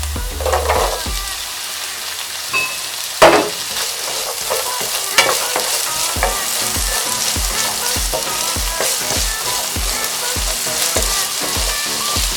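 Chopped onion and carrots sizzling in oil in a pot while being stirred, with a loud clank about three seconds in and a smaller one about two seconds later.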